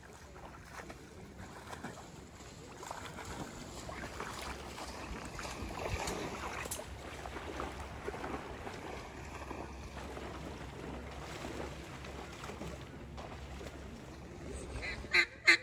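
Steady sloshing and splashing of waders pushing through knee-deep water in flooded timber. Near the end come two or three loud, sharp duck quacks.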